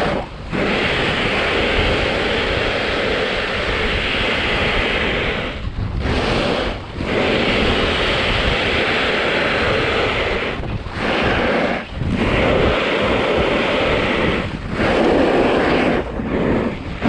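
Wind rushing over a moving action-camera microphone, mixed with the hiss and scrape of edges carving on groomed halfpipe snow. The noise drops out briefly about seven times, as the rider turns or comes off the snow.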